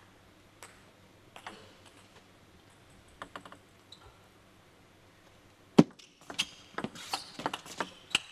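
Table tennis rally: the ball clicking on rackets and table. A few faint ticks come first; then about six seconds in a sharp crack, the loudest sound, starts a quick run of clicks.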